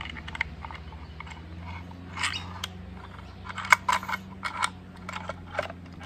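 Plastic air box being worked onto the carburettor of a small two-stroke outboard motor: a string of sharp plastic clicks and knocks, the loudest a little past the middle, over a steady low hum.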